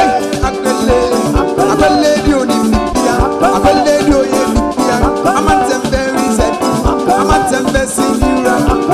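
A live band playing an upbeat highlife-style groove: electric bass, drum kit, keyboards and electric guitar, with the guitar lines bending in pitch over a steady beat.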